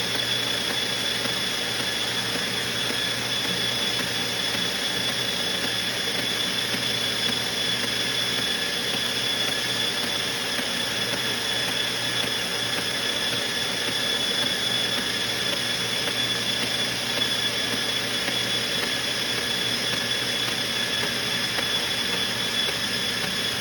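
Motorized treadmill running steadily at full power, its motor and belt giving an even hum with a steady high-pitched tone over it, while toy die-cast cars ride the moving belt.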